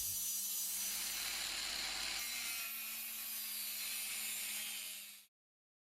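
Proxxon Longneck LHW/E angle grinder running on a workpiece: a steady motor hum under a high grinding hiss, which stops suddenly about five seconds in.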